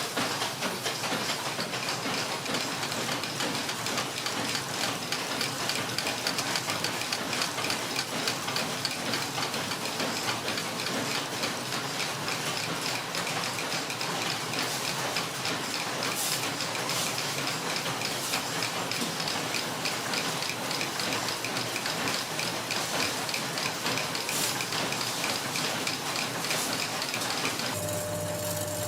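Screw-making machinery running with a dense, fast, steady clatter of small metal clicks. About a second before the end it changes to a steady machine hum with a held tone.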